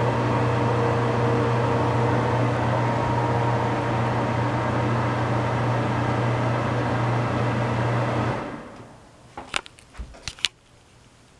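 Bathroom ceiling exhaust fan running with a steady low hum and rush of air under a faint steady whine. About eight seconds in the sound cuts off and dies away within a second. A few sharp clicks follow.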